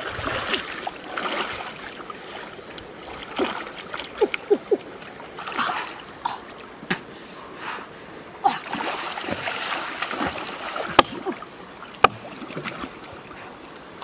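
Water sloshing and splashing in uneven swells as a person wades through a pond and moves their arms through the water. Two sharp clicks near the end stand out as the loudest sounds.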